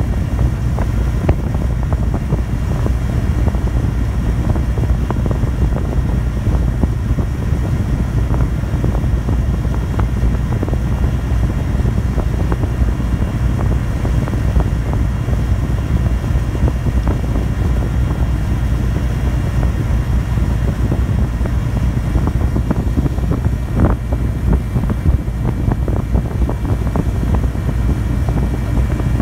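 Ferry's diesel engine running under way, heard inside the passenger cabin as a steady low drone with faint steady hum tones above it. Late on there is a single short knock.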